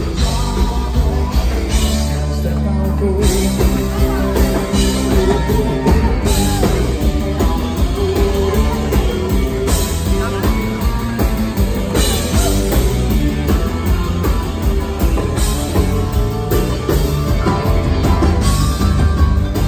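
A dansband playing live, with guitars, a steady dance beat and a singing voice. The highs thin out briefly about two seconds in before the full band picks up again.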